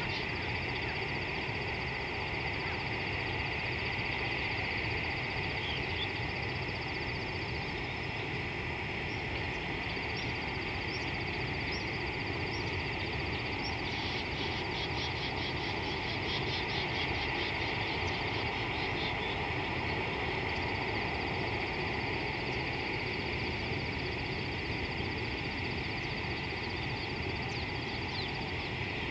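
Steady insect chorus: a continuous high buzz with a faster pulsing trill above it, over a low steady rumble, with a few short bird chirps here and there.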